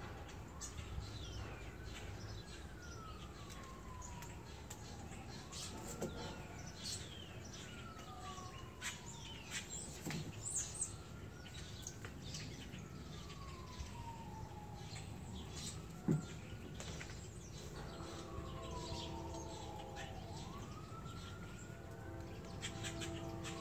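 A distant siren wails in slow rising-and-falling sweeps that repeat about every four to five seconds, with birds chirping. A steady hum of several tones joins near the end.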